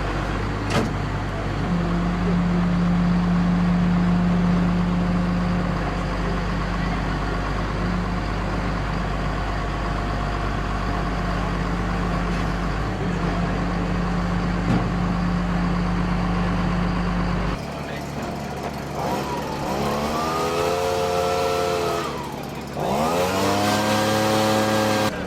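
A steady engine-and-outdoor rumble with a low hum. About eighteen seconds in, the sound changes abruptly to the Red Bull Formula 1 car's 2.4-litre V8 revving hard twice. Each time the pitch climbs steeply to a high scream and holds, with a short dip between the two runs.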